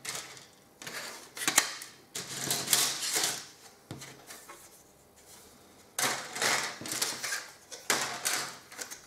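Plastic model-kit sprues being handled and set down on a cutting mat: several bursts of light clattering and rustling, with a quieter stretch of about two seconds in the middle.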